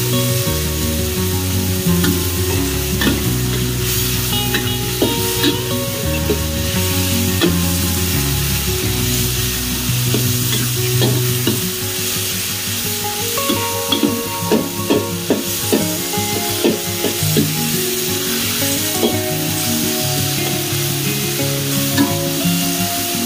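Sliced pork sizzling in a hot steel wok while a metal wok spatula stirs it and scrapes against the pan, with a run of quick scrapes and taps about two-thirds of the way through. Background music plays underneath.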